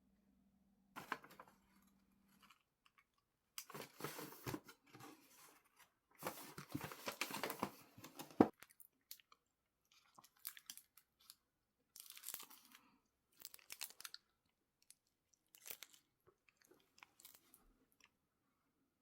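Close-up crunching and crinkling noises in irregular bursts: a dense run of about five seconds, then shorter scattered bursts.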